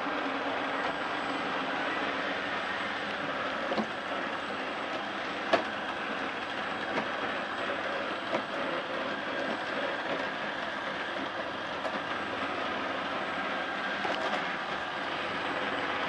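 ILIFE A6 robot vacuum running over carpet tiles: a steady whir of its suction fan and brushes, with a few short knocks, the sharpest about five and a half seconds in.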